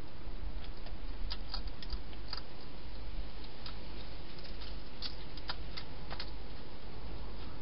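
Wild hedgehog feeding from a bowl inside a plastic feeding box: scattered sharp clicks and crunches at an irregular pace over a steady hiss and low hum.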